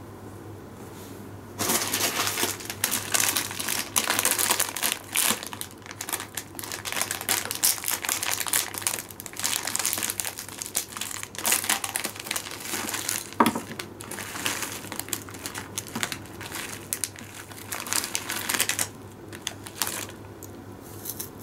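Paper wrapping and a plastic snack bag crinkling and rustling as they are handled and opened by hand. The rustling starts about two seconds in, runs in irregular bursts, and dies down near the end.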